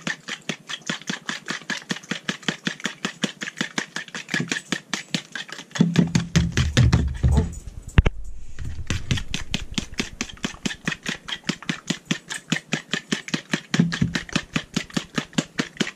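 A metal fork beating eggs and milk into batter in a plastic bowl, clicking against the bowl's side in a quick even rhythm of about five strokes a second. Twice, about six seconds in and near the end, the strokes turn heavier and deeper, with a sharp single click just after the first of these.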